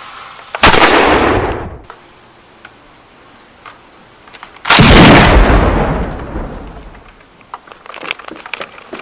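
Two explosion sound effects: a sudden blast about half a second in and a longer one about four and a half seconds in, each dying away over a second or two. A few small clicks near the end.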